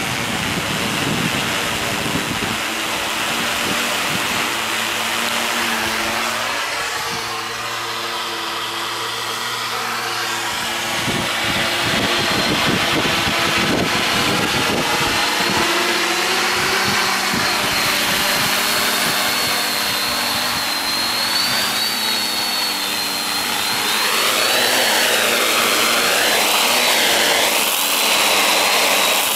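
Quadcopter's electric motors and propellers whining steadily, the pitch rising and falling several times near the end as the throttle changes. Wind buffets the microphone at times.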